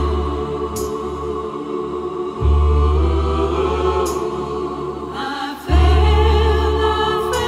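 Music with sung, choir-like voices over deep held bass notes, with a new bass note coming in about every three seconds.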